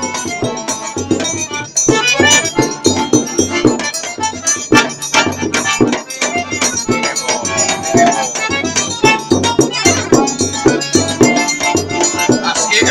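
Piano accordion playing a lively tune with a steady, even beat.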